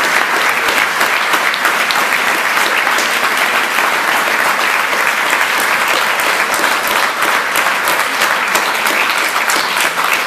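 Large crowd applauding: dense, steady clapping of many hands.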